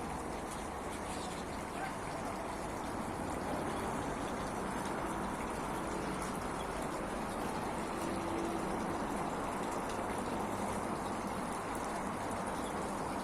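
Small garden waterfall and fountain running with a steady trickling splash, with a few faint chirps from small cage birds.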